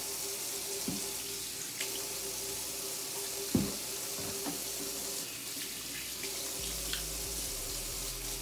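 Kitchen sink tap running as hands are washed under it: a steady rush of water. There is a single sharp knock about three and a half seconds in.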